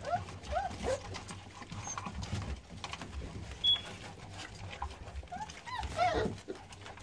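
American Staffordshire Terrier puppies eating from a shared stainless-steel pan, giving short high whines and squeals now and then, most around the last two seconds, over small clicks and chewing. One short sharp tick about three and a half seconds in is the loudest sound.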